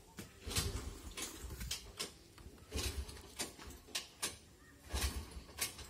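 Scattered clicks and knocks, with three dull thumps about two seconds apart.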